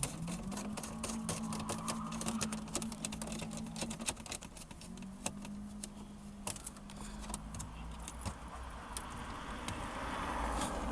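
Many small clicks and light jingling rattles of a connector bracket, its screws and plastic mount being handled and fitted by hand. A low steady hum runs underneath, breaking off about four and a half seconds in, then coming back and stopping about seven and a half seconds in.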